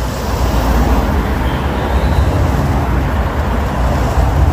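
Vans driving slowly past at close range on a city street: a steady rumble of engines and tyres.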